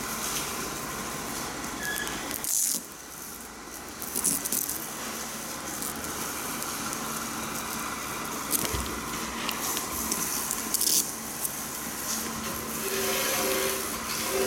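Hands handling an Air Jordan 8 sneaker: scraping and rustling on the suede and leather, with irregular small clicks and jingles from the metal ball chain of its hang tag, over a steady background hiss.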